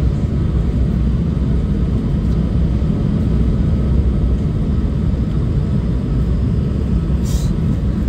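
Airliner cabin noise heard from a window seat on approach: the jet engines and the airflow over the fuselage make a steady, deep rumble. A brief hiss comes about seven seconds in.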